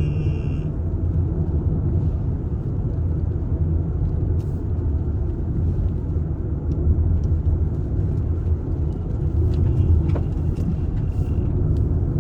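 Steady low rumble of road and engine noise inside a moving car. A faint high tone sounds briefly at the start and again about ten seconds in.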